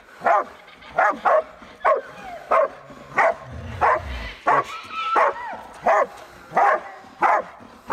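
Pig dogs barking steadily at a wild boar holed up in a hollow log, bailing it: short, loud barks about one every two-thirds of a second.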